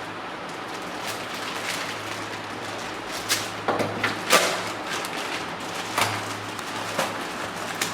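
Handling of bicycle parts during assembly: a string of sharp knocks and clicks, closer together just after the middle and then spaced about a second apart, over a steady low hum.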